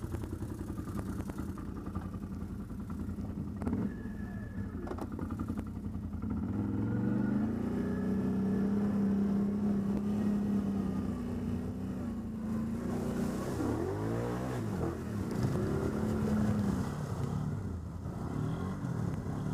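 ATV engine running and being revved, its pitch rising about six seconds in, then dropping and climbing again twice near thirteen to fifteen seconds, with a few clattering knocks around four seconds.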